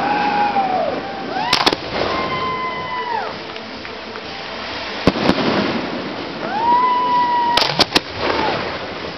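Aerial firework shells bursting with sharp bangs, in quick clusters about one and a half, five and eight seconds in. Between the bangs a high tone rises, holds for about a second and falls away, twice.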